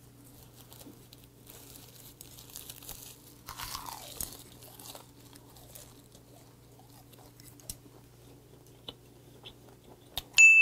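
Quiet crunching and chewing of a bite of gwamegi (half-dried Pacific saury) wrapped in crisp dried laver, with faint crinkles of the seaweed sheet. Near the end a single bright ding rings out, much louder than the chewing.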